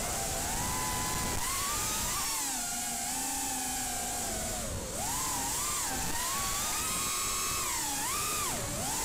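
Brushless motors of a 4-inch racing quadcopter (RCX H2205 2633 kV) spinning DAL 4x4.5 tri-blade bullnose props, whining as heard from the onboard camera. The pitch rises and falls with throttle, with a short dip in pitch and level about five seconds in.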